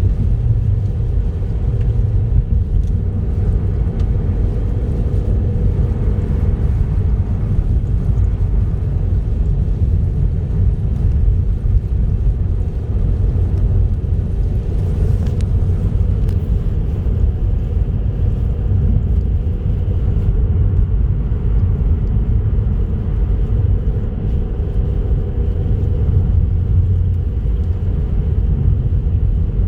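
Car driving along a highway: a steady low rumble of engine and road noise.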